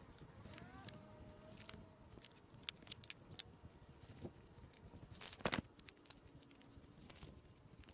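Light clicks and clacks of composite raised-bed boards and plastic snap-lock brackets being handled and set down, with a louder clatter about five seconds in.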